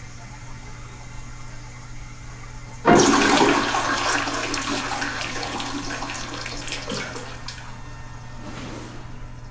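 A toilet flushes: a sudden loud rush of water about three seconds in that slowly dies away over several seconds, over a steady low hum.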